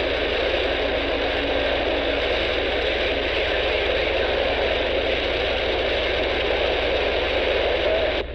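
Steady hiss of static from the speaker of an Intek H-520 Plus handheld CB radio tuned to channel 19 AM, the open band noise with no station coming through, over a low steady hum.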